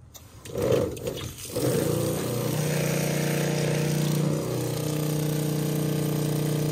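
Remco diaphragm roof pump switched on, starting about a second and a half in and then running with a steady hum, pumping water through the lines to flush out leftover soap.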